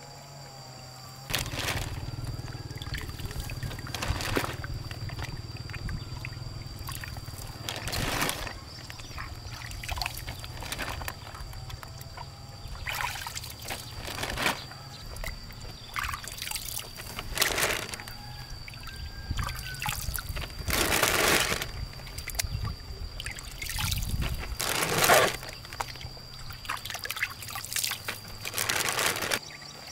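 Water splashing and pouring in short bursts every few seconds, over a steady low hum.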